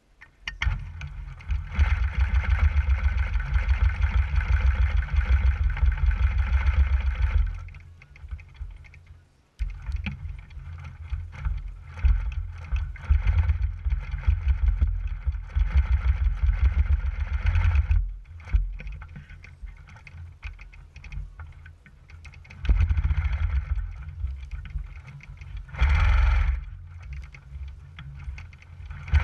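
Longarm quilting machine stitching along an acrylic ruler, its motor and needle running with a low rumble and a whir. It runs in stretches of several seconds, loudest from about two to seven seconds in and again near the end, easing off in between.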